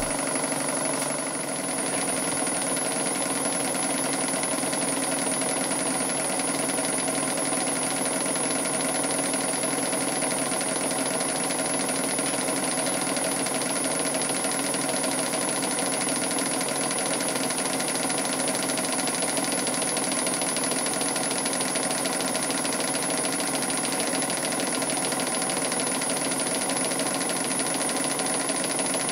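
Model steam engine, a Stuart No. 10 vertical, running steadily and driving a small PM Research dynamo by a belt. The dynamo is lighting the LED lamps. The sound stays even at one level throughout.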